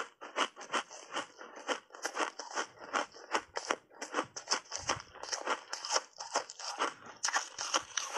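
A mouthful of ice, frozen with mixed berries and coated in matcha powder, being chewed: a rapid, unbroken run of sharp crunches and crackles, several a second, as the ice breaks between the teeth.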